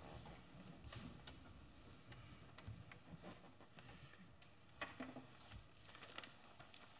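Near silence: room tone with faint scattered clicks and rustles as people settle into their chairs, one a little louder about five seconds in.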